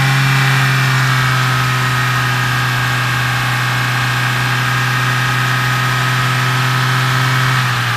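Opel Corsa D's 1.2-litre 16-valve A12XER Ecotec four-cylinder petrol engine held at high revs, running with a steady, even drone; the revs drop right at the end.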